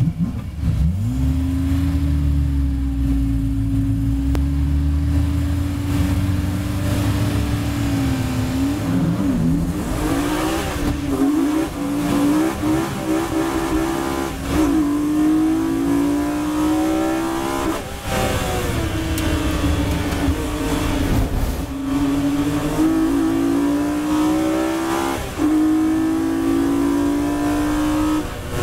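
BMW E36 M3 race car's straight-six engine heard from inside the cockpit at a standing race start. The revs are held steady for several seconds, then the car launches and accelerates hard, the engine note climbing and dropping sharply at each of several upshifts.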